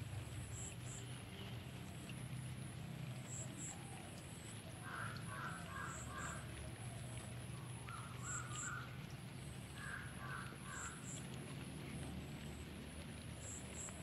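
A bird calling in three short bouts of quickly repeated notes around the middle, over a steady low rumble.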